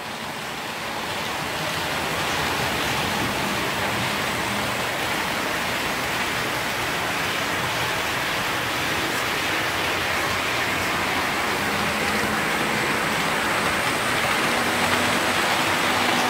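HO scale model trains running on the layout: a steady rushing rattle of metal wheels on the rails with the whirr of the locomotive motor, building up over the first couple of seconds and then holding steady. The locomotive has no sound decoder, so this is only its mechanical running noise.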